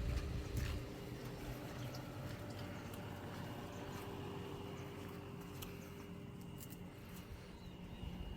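A steady low machine hum with a faint high-pitched tone over it, and a few light clicks.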